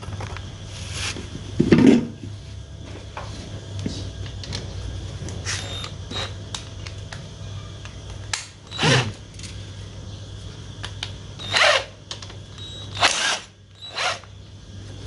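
Cordless electric screwdriver run in several short bursts, backing out the bolts of a Yamaha Jupiter Z1's right-side engine cover.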